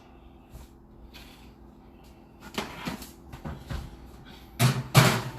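Kitchen handling sounds: a few short knocks and rustles as things are picked up and put away, the loudest two near the end.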